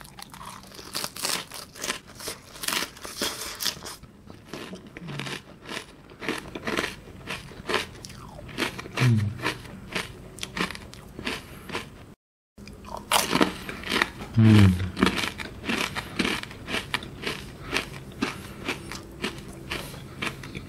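Ice cream being bitten and chewed close to the microphone, with many sharp crisp crunches. The sound drops out briefly at a cut about twelve seconds in.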